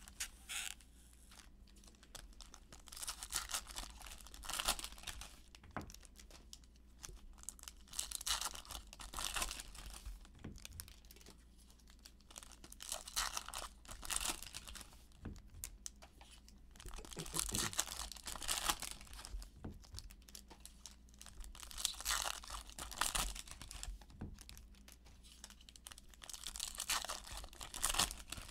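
Foil wrappers of Stadium Club baseball card packs crinkling and tearing as they are ripped open by hand, in bursts every few seconds.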